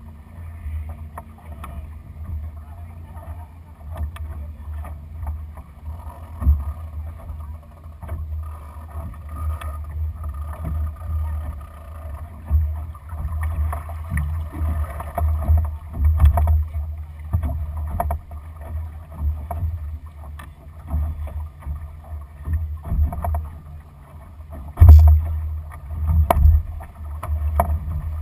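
Wind rumbling and buffeting on the microphone of a camera on the deck of a Lightning sailing dinghy, in uneven gusts that swell louder about two-thirds of the way in and near the end, over a faint wash of water along the hull.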